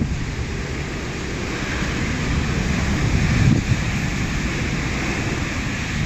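Typhoon wind blowing steadily with rain hiss, the gusts buffeting the microphone, and a stronger gust about three and a half seconds in.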